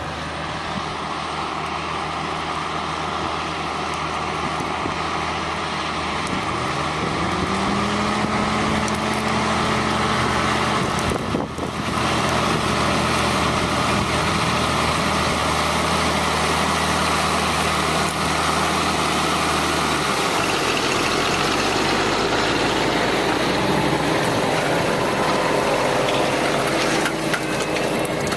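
Valtra 191 tractor's diesel engine working under load while pulling a reversible plough, with a rising pitch about a quarter of the way in. Its low engine tones drop away about two-thirds of the way through, leaving a steady noisy rumble.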